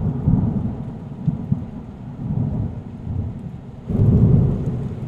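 Thunder rumbling over rain: a low rolling rumble that swells again about four seconds in.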